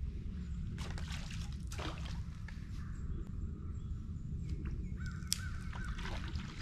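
Birds calling outdoors, with harsh calls in two bouts, one about a second in and one near the end, over a steady low rumble.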